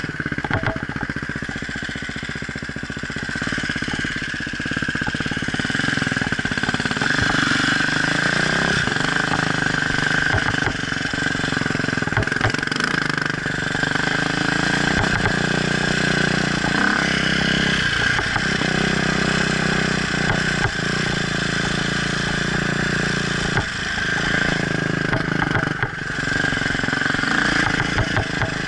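Off-road motorcycle engine running with revs rising and falling, with scattered short knocks throughout.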